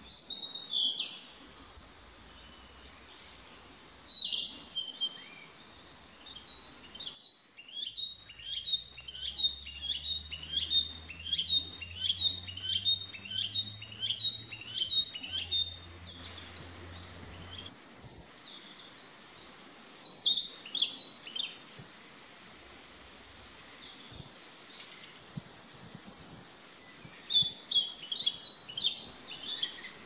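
Narcissus flycatcher singing clear, high whistled phrases. Its song opens with a few separate phrases, runs into a long series of evenly repeated short phrases about one and a half a second, and ends with several more varied phrases.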